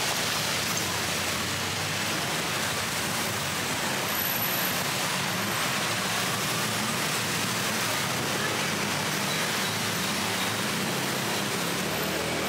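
Steady road-traffic noise of a busy city street, as a continuous wash of engine and tyre sound.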